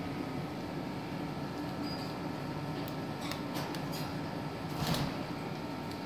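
Cockatiel clambering on a wire birdcage: a few light clicks, then a short, louder rustle about five seconds in, over a steady background hum.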